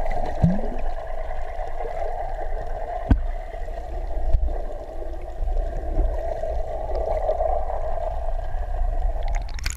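Underwater sound picked up by an action camera in its waterproof housing: a steady muffled water hiss with a low rumble, a few dull knocks and bubbling, and a brief splash near the end.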